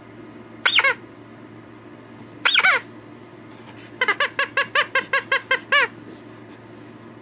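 A squeaky toy being squeezed. There are two single squeaks, then a quick run of about nine squeaks, roughly five a second.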